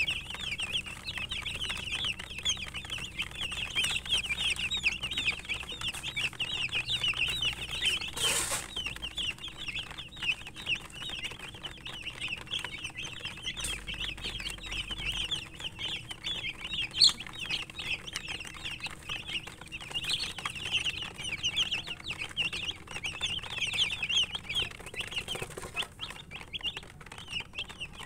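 A crowd of baby chicks peeping continuously in a dense, high-pitched chorus of short overlapping cheeps. A brief rustle of noise breaks in about a third of the way through, and a single sharp click later.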